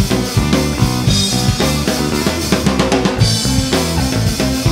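Live rock band playing an instrumental passage: a drum kit keeps a steady beat of kick and snare hits under bass guitar and electric guitar.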